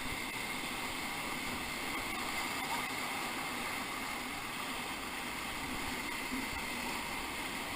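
Steady rushing of whitewater rapids around a raft.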